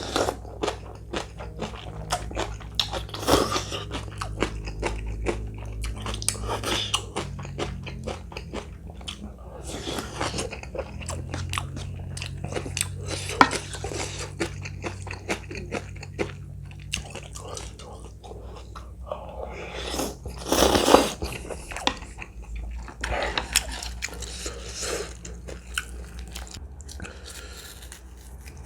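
A person chewing and crunching food close to the microphone, with many small wet mouth clicks and a louder noisy spell about twenty seconds in. A steady low hum runs underneath.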